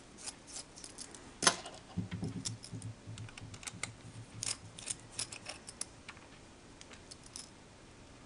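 Small screwdriver clicking and scraping against the tiny screws of a rugged handheld computer's rubber elastomer cladding as they are backed out: a run of light, irregular ticks, with one sharper click about a second and a half in.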